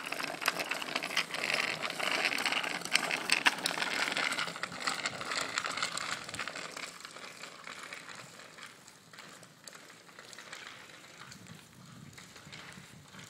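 A child's bicycle with training wheels rolling over a gritty dirt road: a steady crackling crunch of tyres and small wheels on grit. The sound fades from about seven seconds in as the bike moves away.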